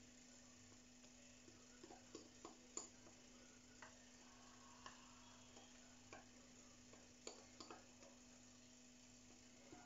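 Faint, irregular light clicks and taps of a utensil against a mixing bowl as cake batter is poured and scraped out, over a low steady hum.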